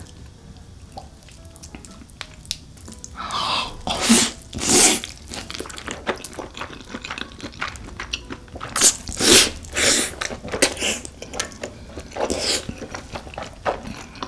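Close-miked eating of spicy cheese-coated fire noodles wrapped in a fried egg: wet chewing and small mouth clicks, broken by several loud slurps about 4, 5, 9 to 10 and 12 seconds in.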